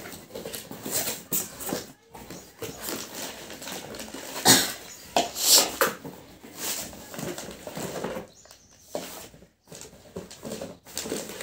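Cardboard box flaps and plastic-bagged mixer jars being handled: irregular rustling, scraping and crinkling, with sharper bursts about four and a half and five and a half seconds in.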